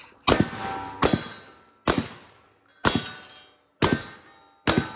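Shotgun fired rapidly, six shots a little under a second apart, each followed by a fading metallic ring.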